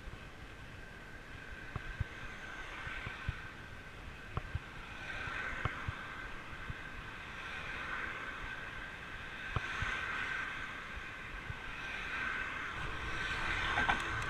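Fat bike being ridden on a road: a steady hum that swells louder and fades several times, with scattered clicks and knocks from the bike.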